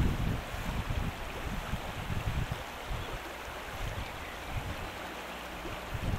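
A shallow river running steadily, with wind buffeting the microphone in gusts, strongest around the start.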